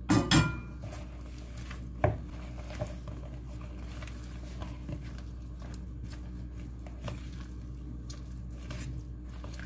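Silicone spatula stirring thick batter with diced sausage and cheese in a bowl: soft scraping and squelching. There is a clatter near the start and a sharp knock about two seconds in.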